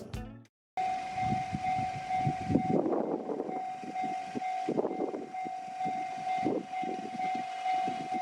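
Japanese railway level crossing warning bell ringing steadily, starting just under a second in, over irregular swells of rumbling noise.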